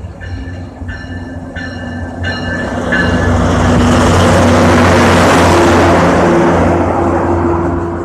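Metro-North BL20GH diesel locomotive arriving at a station, its bell ringing about once every two-thirds of a second during the approach. About three seconds in, the engine and the wheels on the rails grow loud as the locomotive passes close by, then ease off near the end as the passenger coaches roll past.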